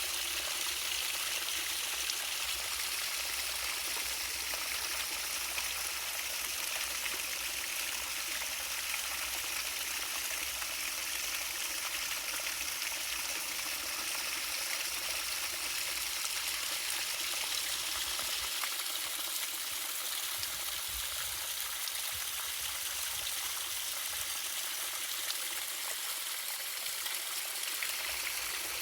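Waterfall, water falling and splashing in a steady rushing hiss; its faint low rumble thins out about two-thirds of the way through.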